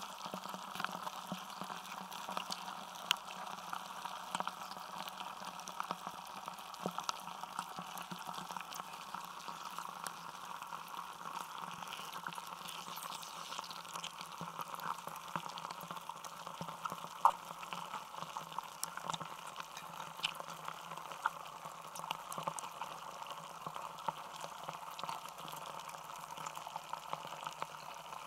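Block of ice melting in water, heard through contact microphones frozen inside it: a dense, steady crackle of tiny clicks and pops, with a few louder pops scattered through, the loudest about seventeen seconds in.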